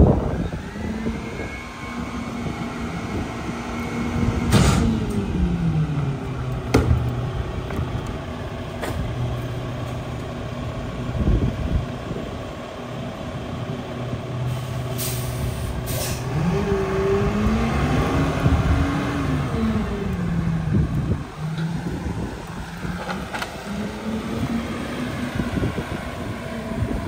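Mack LEU garbage truck's diesel engine running with its pitch held high and then dropping, with a few knocks and two short air-brake hisses around the middle. In the second half the engine rises and falls in pitch as the truck pulls away.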